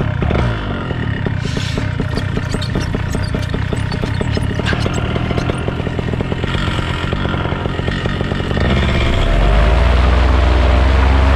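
Paramotor engine and propeller running on the ground with a fast, pulsing idle, then throttled up about eight and a half seconds in, rising in pitch and getting louder.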